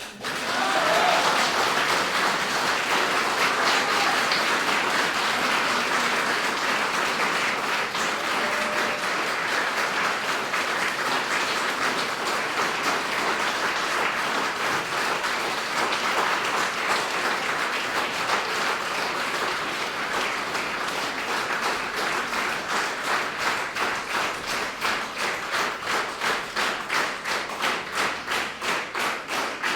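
Audience applauding in a hall, a dense even clatter of many hands that settles into rhythmic clapping in unison, about two claps a second, in the last several seconds.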